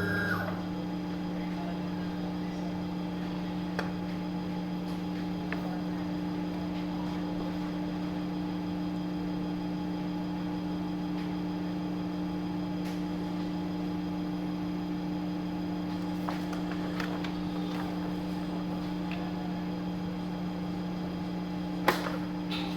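Electric motor of a paper-cutting guillotine running steadily with a constant hum, with a single sharp click near the end.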